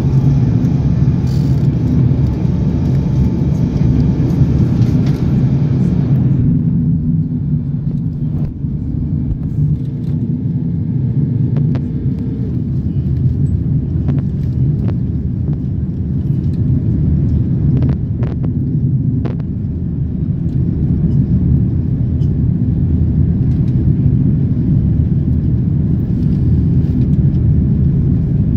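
Steady low rumble inside an Airbus A330-300 cabin in flight on approach: engine and airflow noise heard from a window seat over the wing. A higher hiss drops away about six seconds in, and a few faint clicks and rattles are scattered through it.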